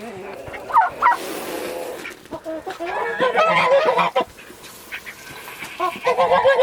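Backyard poultry, chickens and a turkey, calling and clucking in several short bursts as they crowd around scattered feed, with a brief rustling noise about a second in.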